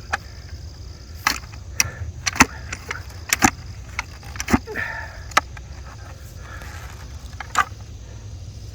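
Manual post hole digger being worked in a hole: irregular sharp clacks and knocks, about a dozen, over a steady low hum.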